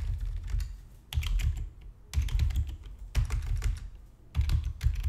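Typing on a computer keyboard: short runs of keystroke clicks with brief pauses between, about one run a second, each keystroke carrying a dull thump.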